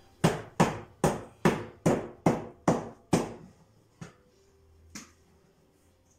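Knocking on linoleum being laid over a floor: eight evenly spaced blows, about two and a half a second, then two lighter ones a second apart.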